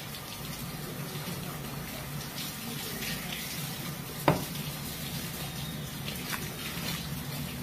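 Steady running tap water, with faint scattered clicks and one sharp knock about four seconds in.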